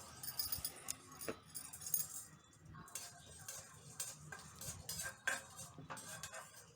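Metal spoon stirring chana dal in hot oil in a kadai, clinking and scraping irregularly against the pan.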